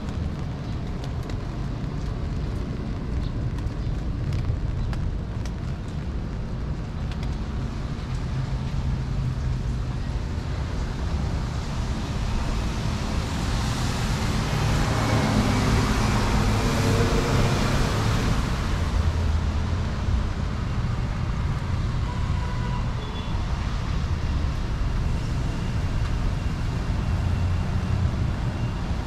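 Street traffic on a wet road, a steady rumble and hiss. About halfway through, a vehicle passes close, its tyre hiss swelling and then fading away.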